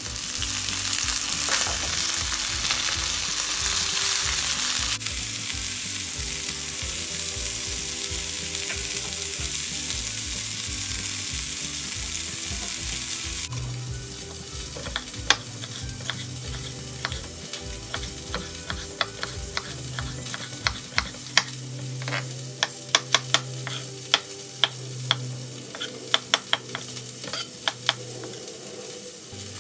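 A loud steady hiss for roughly the first half. Then a chef's knife chops a red capsicum and slices button mushrooms on a wooden cutting board: a run of sharp clicks as the blade strikes the board, quickening and crowding together near the end.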